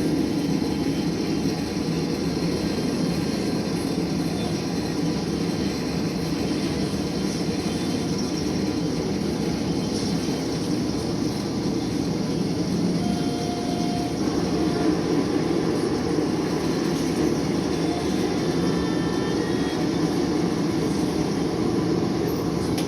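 Blacksmith's forge running: a steady, even rushing noise with no hammer strikes, as metal heats for forging.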